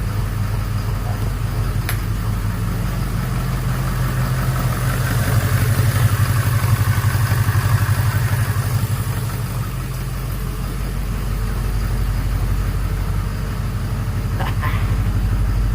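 Ford 6.7 Power Stroke V8 turbodiesel running at idle on its first start after a fuel-system repair (new CP4 pump and injector), steady and smooth with no rod knock. It grows louder for a few seconds around the middle, then settles back.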